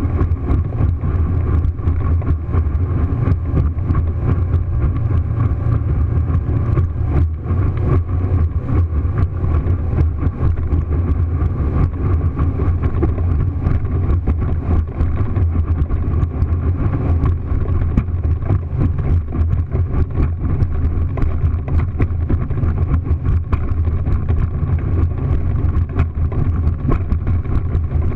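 Motorboat running at high speed: a loud, steady low rumble of engine, wind and water rushing past, with many small irregular knocks throughout.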